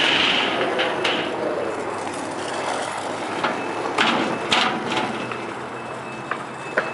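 Scooter wheels rolling on skatepark concrete in a steady rumble, with a number of sharp clacks of the scooter hitting the ground.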